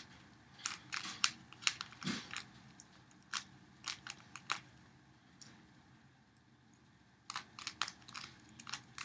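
3x3 Rubik's Cube being turned by hand: quick runs of plastic clicks as the layers snap round, with a pause of about two seconds before the last run.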